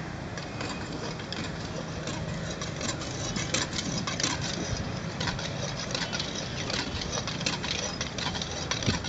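An engine running steadily as a low hum, with many short clicks and knocks scattered over it from about three seconds in.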